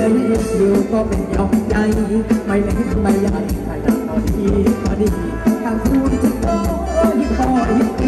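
Live band playing Thai ramwong (Phetchaburi ramwong) dance music, a steady drum beat under a wavering melody line.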